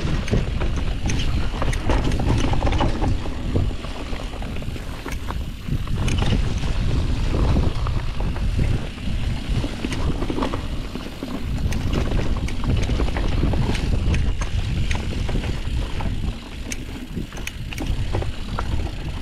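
Mountain bike riding down a dry dirt trail: wind buffets the camera microphone over the rumble of the tyres, with frequent sharp knocks and rattles from the bike.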